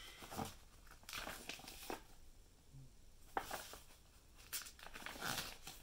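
Paper pages of a booklet being turned and handled, in a few short rustles.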